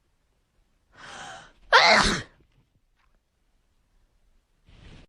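A person sneezing: a breathy in-breath about a second in, then one loud sneeze just under two seconds in. Another in-breath starts near the end.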